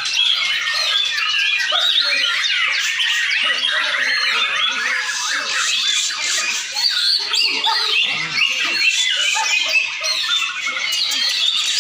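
Several white-rumped shamas singing at once in a dense, overlapping chorus of rapid whistles, trills and sliding notes, with no break.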